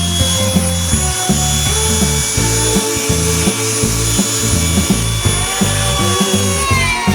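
Background music with a steady beat and bass line over the high whine of an electric power tool running. The whine winds down near the end.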